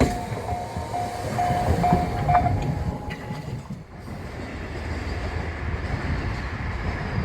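Railway level-crossing alarm ringing in a steady repeated tone, stopping about two and a half seconds in, over the fading rumble of a train that has just passed.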